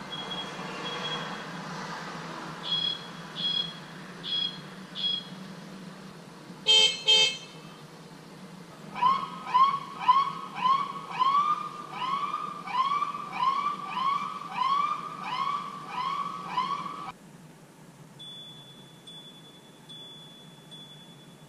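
An Orp Smart Horn bicycle horn heard from inside a car with the window open: a few short high beeps, then two loud blasts about seven seconds in. Then an emergency vehicle siren whooping with rising yelps about one and a half times a second, cutting off suddenly about seventeen seconds in. This is followed by the faint ringing of a standard bicycle bell muffled by the closed car window.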